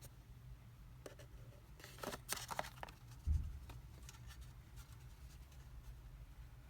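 Box and packaging being handled: a cluster of rustles and small clicks about two seconds in, then a single dull thump.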